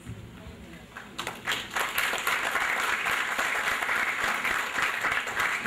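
Audience applauding at the close of a speech. The applause starts about a second in and continues as a dense, even clatter of clapping.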